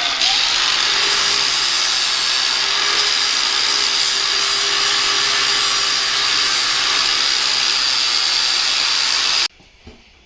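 A power tool running steadily with a hissing, whining noise, cutting off suddenly about nine and a half seconds in.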